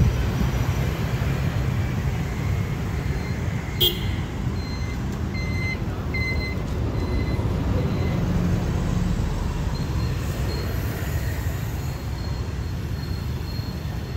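City road traffic, mostly motorbikes and cars, as a steady low rumble. There is a sharp click about four seconds in, and two short high beeps a second or two later.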